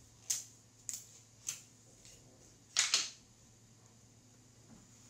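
Adhesive tape being pulled and torn in short rasps, three about half a second apart, then a louder double rasp about three seconds in.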